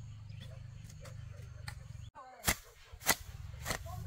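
A steady low hum with faint high chirps cuts off abruptly about halfway. It is followed by a run of sharp knocks at an even beat, about one every 0.6 seconds.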